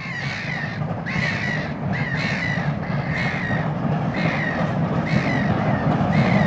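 A crow cawing over and over, about once a second, over the low rumble of an approaching steam locomotive that grows steadily louder.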